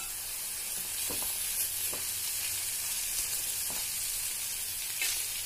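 Sliced onions, green chillies, crushed garlic and ginger sizzling steadily in hot oil in a pan as they are sautéed, stirred with a spatula that scrapes the pan a few times.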